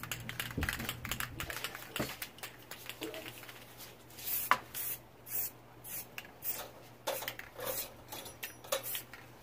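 Aerosol spray paint cans hissing in short bursts, with a few sharp knocks as the cans are handled.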